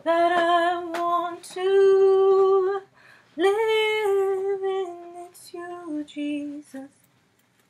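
A woman singing a worship song unaccompanied, in four phrases of long held notes; the last phrase steps down in pitch.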